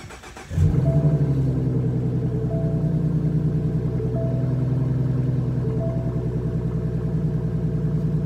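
2015 Ford Mustang with a muffler delete starting about half a second in, loudest just as it catches, then settling into a steady idle with an even pulse from the unmuffled exhaust, heard from inside the cabin.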